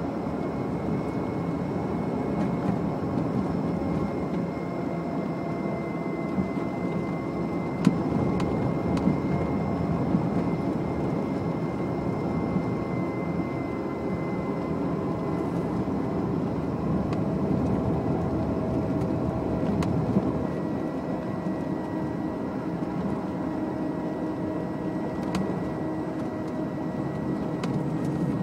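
A 1992 Renault 9 converted to electric drive, climbing a steep hill with no combustion engine running: steady road and tyre noise with a thin, steady high whine over it. A few sharp clicks break through.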